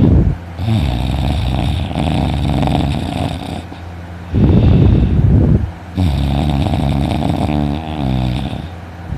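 A man snoring heavily in his sleep, really loud: two loud rasping snores, at the start and about four and a half seconds in, with a quieter buzzing snore on the breaths between them.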